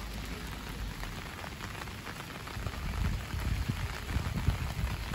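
Rain falling steadily on a wet platform and puddles, a dense patter of small drops, with an uneven low rumble that grows stronger about halfway through.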